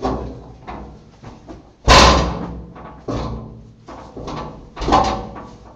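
A series of sharp knocks or bangs, about four, the loudest about two seconds in, each echoing off the rock walls of a cave.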